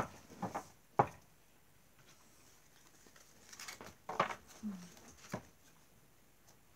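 A deck of cards being handled, cut and laid down in piles on a cloth-covered table: a few soft taps and card rustles, in two groups with a pause of about two seconds between them.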